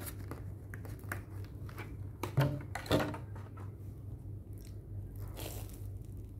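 Clear plastic clamshell food container clicking and crackling as it is opened and the bread roll is handled, with two louder knocks about halfway; near the end a bite into the crusty bread-roll chicken sandwich.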